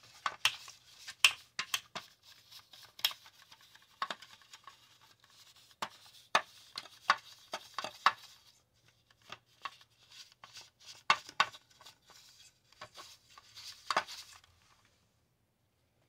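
Bristle brush scrubbing dust off the slatted plastic grille of a space heater's housing: irregular scratching and sharp clicks, stopping near the end.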